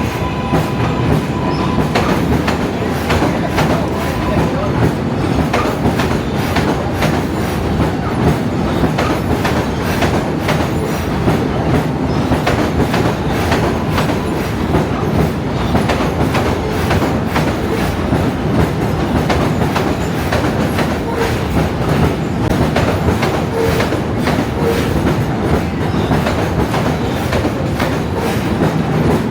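New York City subway train running on the rails: a steady rumble with wheels clacking over the track joints.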